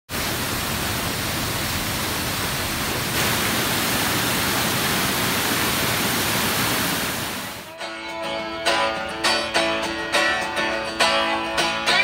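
Steady roar of a waterfall running high with snowmelt, stepping louder about a quarter of the way in. About two-thirds through, the water sound fades out and music of plucked notes begins.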